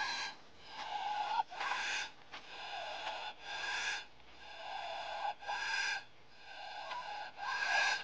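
Capybaras calling: a run of short, wheezy, raspy calls, about one a second, alternating between a lower and a higher pitch.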